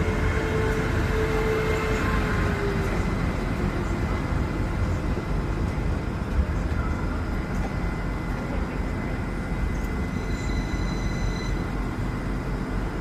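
Passenger train moving at the station: a steady rumble with a whine that slides slightly down in pitch over the first few seconds, the sound easing off gradually.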